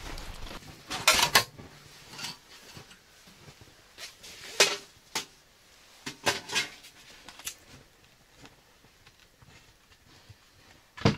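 Scattered knocks and clatter of gear being handled around a small steel wood stove as its kindling is lit, with a sharp knock just before the end.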